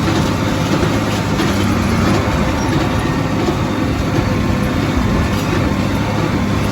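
Farm tractor engine running steadily under load, a loud even drone with a constant low hum.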